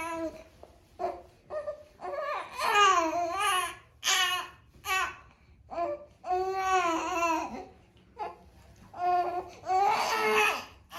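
An infant fussing and babbling: about five short, high-pitched vocal bursts that waver up and down in pitch, with brief pauses between them.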